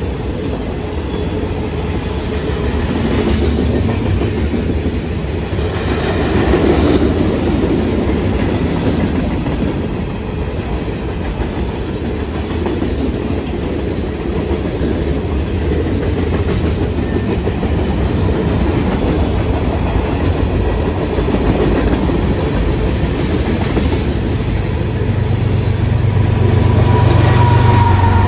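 Loaded freight cars rolling past with a steady rumble and wheels clicking over rail joints. Near the end, the deep engine drone of the GE ES44AH distributed-power diesel locomotive grows louder as it works to build speed.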